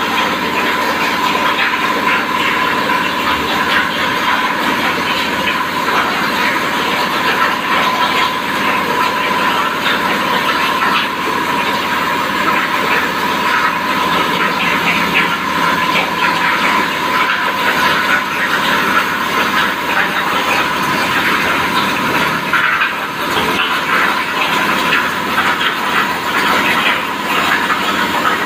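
CNC plasma cutter's torch cutting through steel plate: a loud, steady hiss of the cutting arc and gas with a steady tone running through it.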